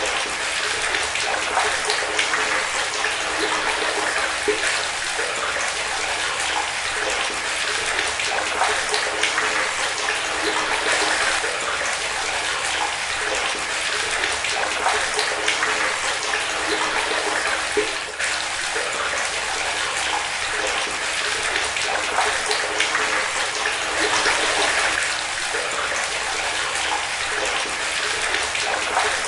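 Water running steadily from a tap and splashing into water below, a continuous bathroom splashing sound.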